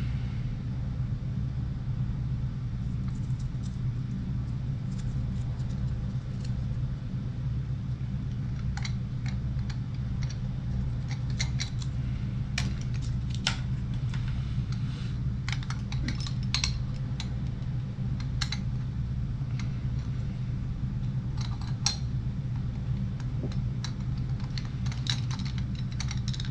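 Scattered light clicks and clinks of small threaded brass pipe fittings and a roll of Teflon tape being handled and screwed together by hand, over a steady low hum.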